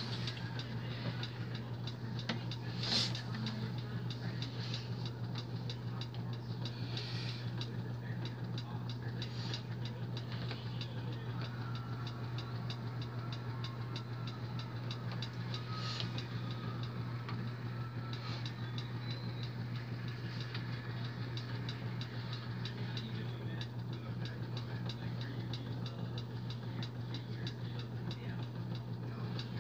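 Quiet room tone: a steady low hum with faint, rapid, even ticking, and a soft knock about three seconds in.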